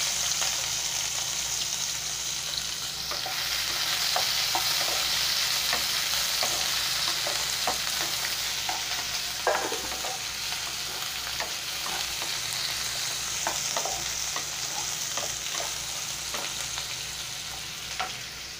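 Freshly added chopped onions sizzling in hot oil in a nonstick pan, stirred and scraped with a slotted spatula that gives scattered light clicks against the pan. The sizzle eases gradually toward the end.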